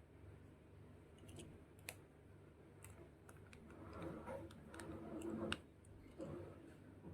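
Faint, scattered small clicks and soft handling rustles of hand work on a washing machine's parts, over a low steady hum.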